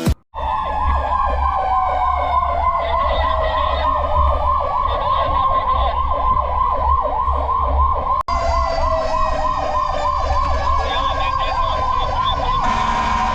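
Fire truck sirens: one warbling fast, about four cycles a second, while another wails in a slow falling sweep that starts over about two-thirds of the way through. A low rumble runs underneath. Near the end the warble changes to a steady tone.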